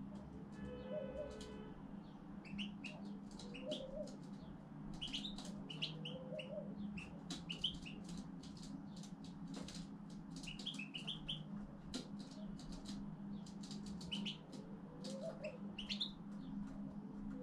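European goldfinch singing: quick twittering chirps and trills in short phrases, with a low call repeating every few seconds and a steady hum underneath.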